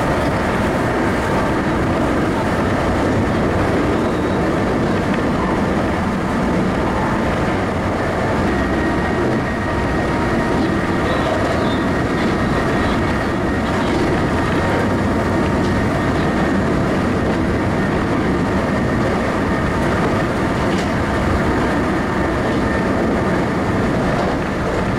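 Sanyo Electric Railway 5000 series electric train running at speed, heard from inside the carriage: a steady noise of wheels on rails and running gear, with a faint steady whine.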